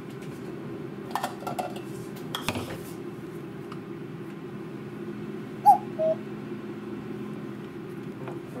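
A ceramic bowl set down and handled on a kitchen counter: a few light clinks and knocks over a steady low hum. About six seconds in come two short high squeaks, the loudest sounds here.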